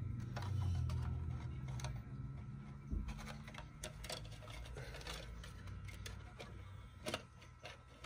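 Irregular light clicks and taps of hard plastic parts being handled, as a 1/24-scale RC crawler's plastic body with a front cage is fitted onto its chassis, over a low steady hum.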